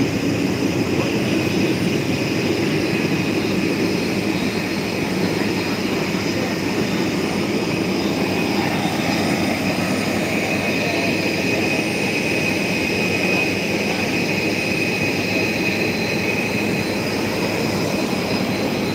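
Jet airliner engines running, a steady rush of noise with a high turbine whine that is strongest in the middle.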